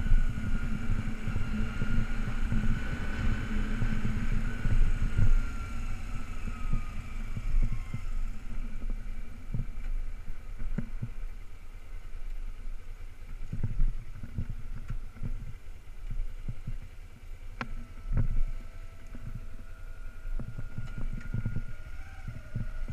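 2008 Kawasaki Ninja 250R's parallel-twin engine running at low speed, with wind buffeting the microphone. Its whine falls in pitch over the first eight seconds as the bike slows, then holds a steady note near the end.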